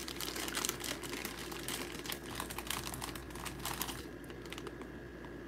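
Plastic chip bag crinkling and rustling as a hand rummages in it for chips: a dense run of small crackles for about four seconds, thinning out near the end.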